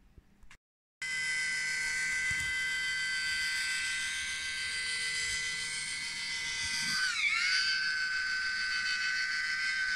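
Small DC motor driving a 3D-printed RC excavator slewring through its gears, starting about a second in and running with a steady high whine. Its pitch sags for a moment about seven seconds in, then recovers.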